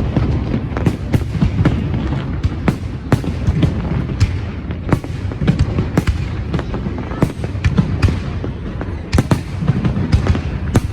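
Fireworks bursting in rapid, irregular succession: many sharp bangs and crackles over a continuous low rumble.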